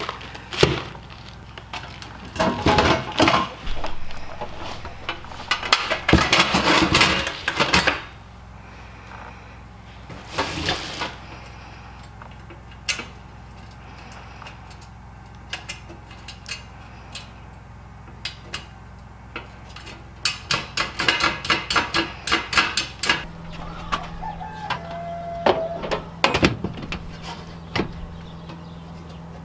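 Screws rattling in a crinkling plastic bag and sheet-metal stovepipe bracket parts clinking and clattering as they are handled, in two busy stretches with sparse clicks between.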